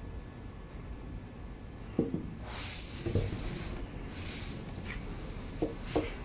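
Handling of a small anodised aluminium lens collar foot and quick-release plate: a few light clacks and knocks of metal parts meeting as the foot is fitted to a telephoto lens's tripod ring, with rubbing and rustling in between, the last two knocks close together near the end.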